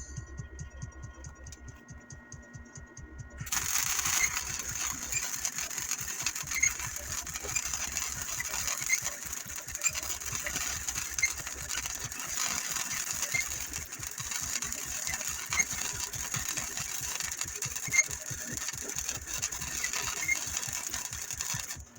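Welding arc on steel, a steady crackling hiss that starts suddenly about three and a half seconds in, after a low hum with faint ticking.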